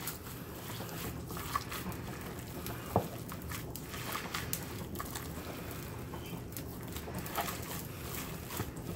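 Gloved hands kneading a raw ground-meat mixture in a stainless steel bowl, giving soft, irregular wet squishing over a steady low hum. There is one sharper click about three seconds in.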